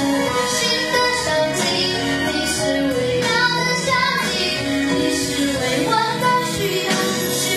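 A boy singing a Mandarin pop ballad into a handheld microphone over musical accompaniment.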